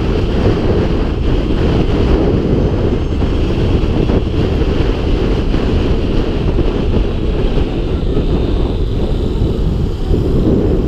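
Steady wind rush on the camera microphone of a 2016 Zero FXS electric motorcycle riding at road speed, heavy and low in pitch. The electric drivetrain adds no engine sound.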